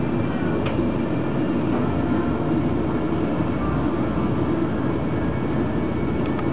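Steady low hum and rumble with no distinct events, only a faint click about a second in.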